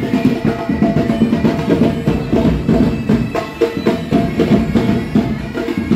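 Pipe band playing: bagpipes with steady drones under the melody, over fast snare and bass drum beats.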